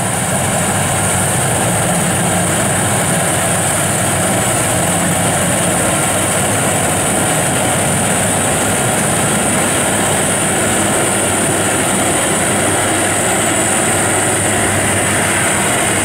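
WD102Pro crawler combine harvester running steadily while cutting and threshing standing rice: an even engine and machinery drone with a steady high whine above it.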